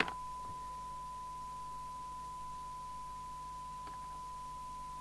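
A steady, unbroken 1 kHz test tone, the standard audio tone used when aligning a radio, with a brief click at the start and a faint tap about four seconds in.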